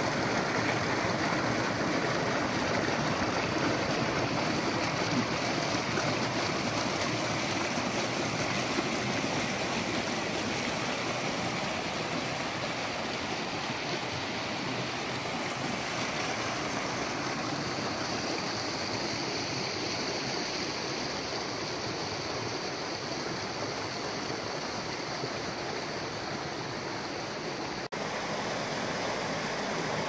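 Mountain trout stream rushing over a small waterfall and rapids: a steady, dense water noise, with a brief drop about two seconds before the end.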